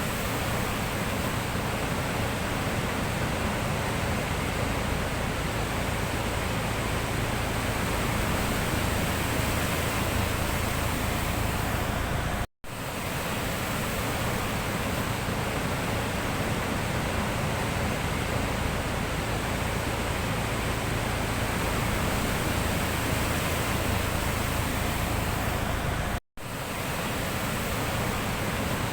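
Steady rushing sound of the sea, an even roar of surf with no distinct separate waves. It drops out to silence for an instant twice, about 12 and 26 seconds in.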